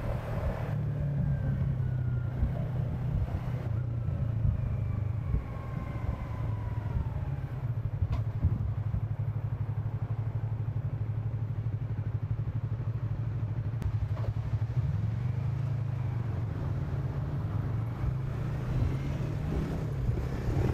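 Yamaha R6 inline-four sport-bike engine running steadily at moderate revs while the motorcycle cruises; the engine note lifts briefly about fifteen seconds in.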